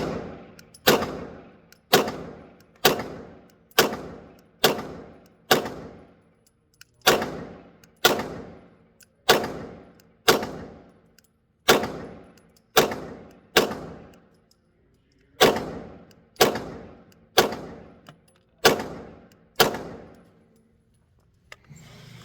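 Glock 47X 9mm pistol fired about nineteen times at a slow, steady pace of roughly one shot a second, in three strings split by short pauses; each shot rings out with a short echo.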